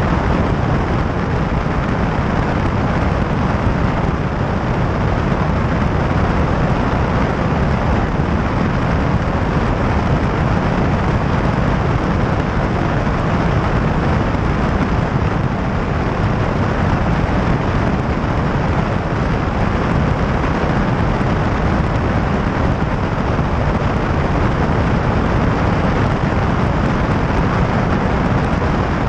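Small high-wing, fixed-gear light airplane in level flight: a steady mix of engine drone and rushing air, heaviest in the low end and unchanging throughout.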